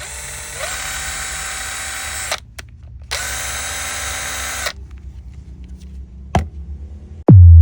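Makita TD110D cordless impact driver running free in two bursts, its motor whine stepping up in pitch partway through the first as the trigger is squeezed further. Near the end, a click and then a loud tone that drops steeply in pitch.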